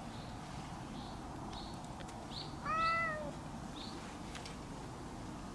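An orange-and-white cat gives one drawn-out meow about halfway through. Faint short high chirps repeat in the background.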